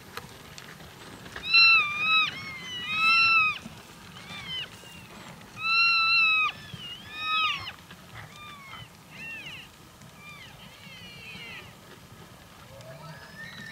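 Elk herd calling during the rut: many overlapping high-pitched mews and chirps. The loudest calls are short and wavering, in a cluster about two to three seconds in and again around six seconds, with quicker chirps trailing off after that.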